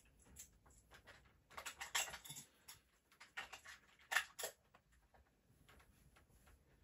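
Quiet, irregular small clicks and taps of AA batteries and a toy's plastic battery compartment being handled, in a few clusters, the loudest a little after four seconds in.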